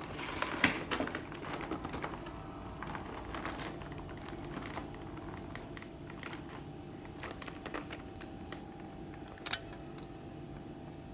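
Irregular light clicks and crackles of plastic toy packaging being handled and opened, with a sharper click about half a second in and another near the end.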